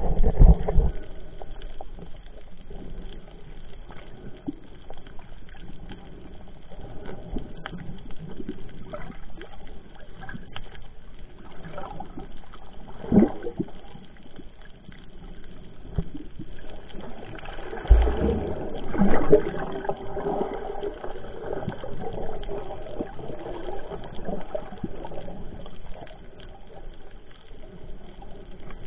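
Underwater sound heard through a waterproof camera's housing: a steady muffled water wash with scattered small clicks and knocks, and louder bursts of gurgling near the start, about 13 seconds in, and around 18 to 20 seconds in.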